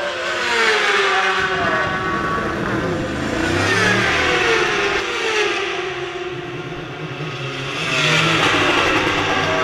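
Racing superbike engines at high revs passing by in turn, the pitch of each dropping as it goes past; the loudest passes come about a second in and again near the end.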